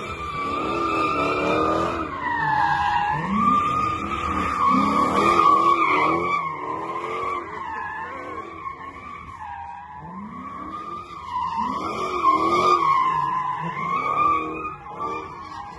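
Chrysler 300C's 5.7-litre Hemi V8 drifting: the rear tyres squeal in a long, wavering screech while the engine revs rise and fall over and over.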